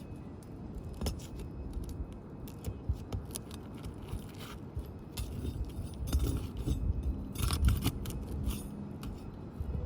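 Flat bar scraping and prying at roof shingles, with scattered sharp clicks and scrapes, busiest near the end.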